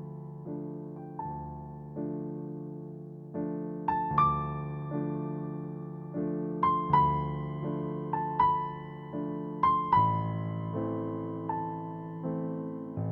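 Background music: slow solo piano, single melody notes struck every half second to a second over sustained low chords, each note fading away.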